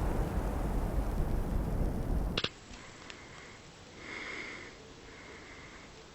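Loud, steady rumbling roar, likely a fire around an aerosol foam canister, cut off by a single sharp bang about two and a half seconds in, taken for the canister bursting. Afterwards there is faint hiss with a couple of short breathy sniffs.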